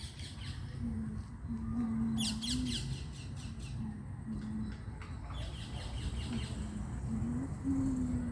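Wild birds singing, with bursts of quick, high chirps, the loudest about two seconds in. Under them a steady low rumble and a low tone that comes and goes in short pieces.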